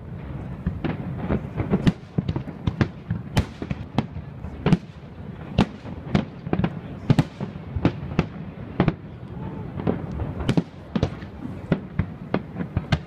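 Aerial fireworks display: a rapid, irregular barrage of shell bursts, two or three sharp bangs a second at times, over a continuous low rumble.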